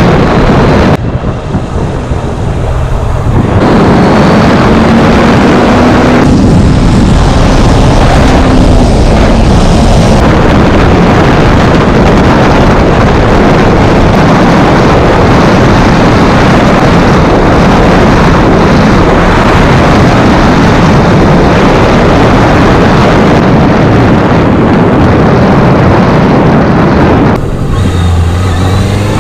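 Honda CBR650F inline-four motorcycle riding at speed, wind rushing over the camera's microphone and mostly covering the engine note. Near the end the wind noise drops and the engine is heard more plainly, its pitch rising.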